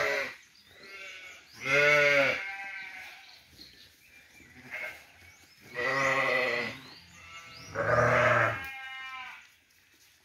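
Livestock bleating: three loud, drawn-out bleats about two, six and eight seconds in, with quieter bleats in between.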